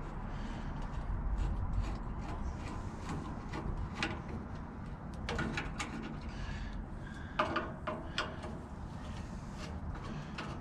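Metal parts of a gas grill being handled and slid out: scattered clinks and scrapes, the loudest a cluster about seven and a half seconds in, over a low steady rumble.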